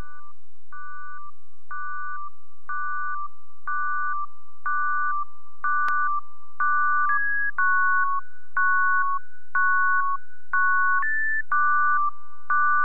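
Synthesizer music: a sparse, repeating figure of pure electronic tones, a short two-note pair about once a second over a faint held tone. The notes shift a little in pitch in the second half.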